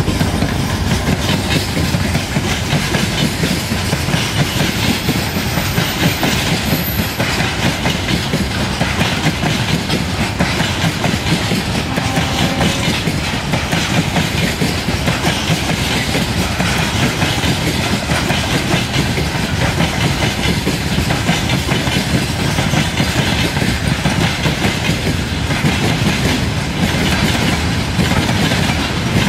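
Freight train passing close by: a long string of covered hopper wagons and tank cars rolling steadily, wheels clattering over the rails.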